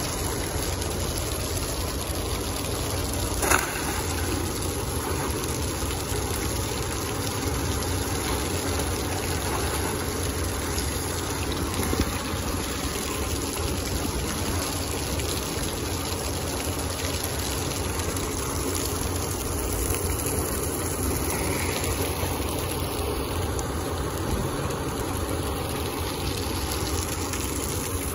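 Heavy diesel machinery running steadily, with two short sharp knocks: one a few seconds in and another about twelve seconds in.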